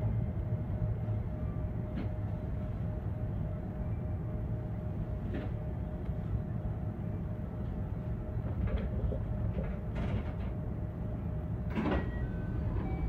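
JR West 321 series electric train running along the line: a steady low rumble with a faint constant hum, and a few sharp clicks, the loudest near the end.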